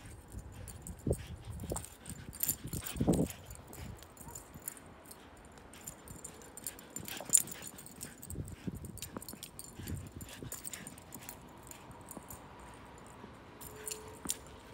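Siberian husky puppy giving short whimpers and yips while playing, with scattered thumps and crunches from its romping in the snow. There is a brief thin whine near the end.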